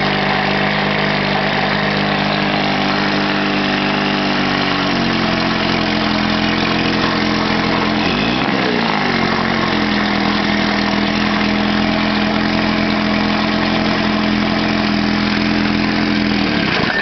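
Kiekhaefer Mercury KG7 Super 10 Hurricane two-cylinder two-stroke outboard running steadily in a test barrel, its propeller churning the water. About eight seconds in the engine briefly revs up and drops back on the twist-grip throttle. It shuts off abruptly at the very end.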